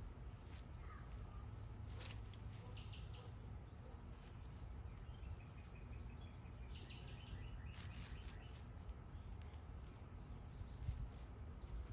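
Small birds chirping in short quick clusters now and then, over a steady low background rumble.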